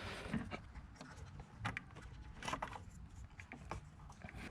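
Light clicks and knocks of the air box's parts being handled and worked loose by hand, a few separate taps spread through, the clearest about a second and a half and two and a half seconds in.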